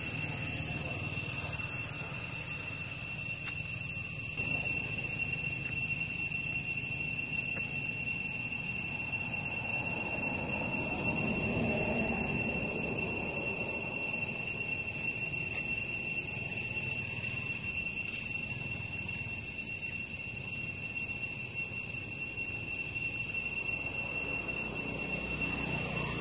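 Steady, high-pitched drone of an insect chorus that does not vary.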